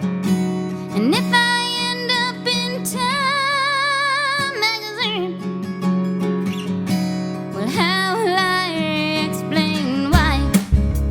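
Background song: strummed acoustic guitar with a singer holding long, wavering notes. A heavy low bass comes in near the end.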